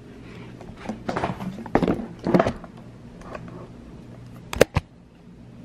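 Handling noise from a camera being moved and propped in place: a few scraping knocks, then two sharp clicks a moment apart near the end.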